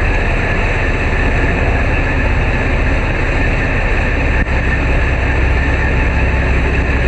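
Steady, loud rumble of a Tamar-class lifeboat's diesel engines running under way, mixed with the rush of churning wake water at the open stern.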